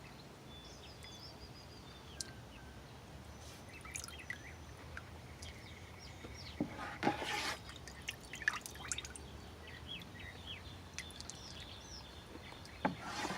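Faint water dripping and small splashes, a little louder about seven seconds in, with birds chirping in the background.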